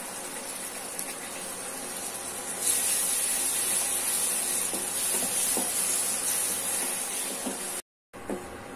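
Onion-tomato masala paste sizzling in hot oil in a nonstick pan as it is stirred in with a wooden spatula. The sizzle gets louder and brighter about three seconds in, with a few light spatula scrapes.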